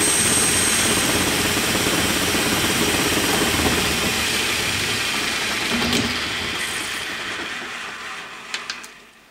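Hardinge lathe spindle running at speed while the cutters turn a plastic blank. Over the last few seconds the sound gradually dies away as the spindle coasts down without a working brake, with a few sharp clicks near the end.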